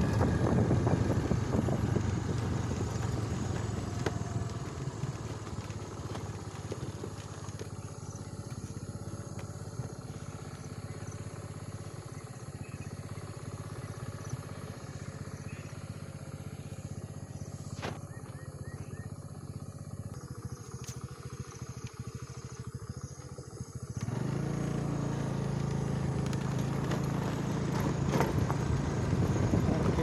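Motorcycle engine running while riding along a road, with wind buffeting the microphone. It runs quieter through most of the ride and picks up again about three-quarters of the way in.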